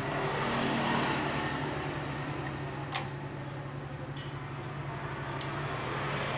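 A steady low hum, with a sharp metallic click about three seconds in, a brief high ring about a second later, and a fainter click near the end.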